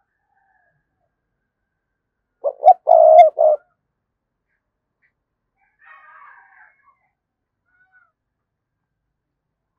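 A spotted dove cooing once, a phrase of four low notes, two short, a longer third and a short last, about two and a half seconds in.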